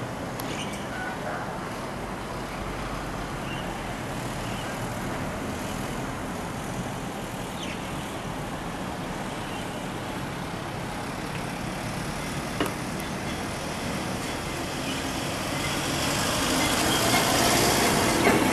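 Steady road traffic noise, with a small tow truck's engine getting louder in the last few seconds as it comes closer, towing a car. A single sharp click about two-thirds of the way through.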